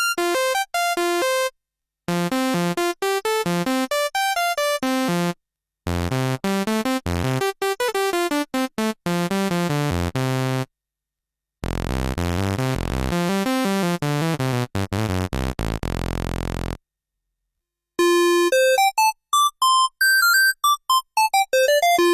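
Yamaha CS01 analog monosynth played dry, one note at a time, in five short melodic phrases, each on a different patch, with a gap of silence of about a second between phrases. The middle phrases sit in a deep, buzzy bass register; the last is a high, bright lead line that runs down and back up.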